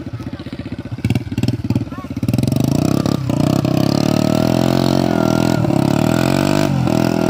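Old small motorcycle engine puttering, then revved up about two seconds in and held at high revs, its pitch swinging up and down, with the bike stuck in mud.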